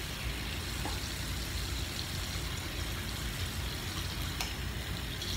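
Tap water running steadily into a sink, with a couple of faint clicks.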